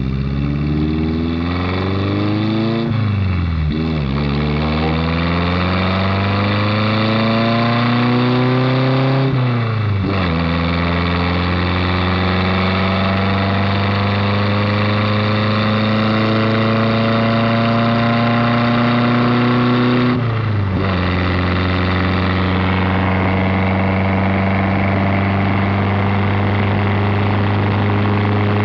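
1983 Chevette 1.6-litre four-cylinder engine pulling a light roadster up through the gears of its five-speed manual. The engine pitch rises, then drops at upshifts about three, nine and a half and twenty seconds in. After the last shift it holds a steady note at cruising speed.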